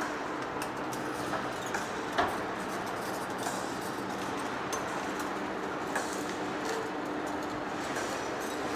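Heavy-duty lathe running as it turns a large forged steel rotor shaft: a steady mechanical noise with a low hum and scattered clicks and knocks, one louder knock about two seconds in.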